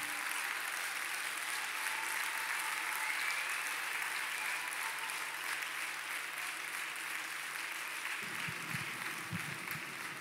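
Audience applauding steadily at the end of a figure skating programme.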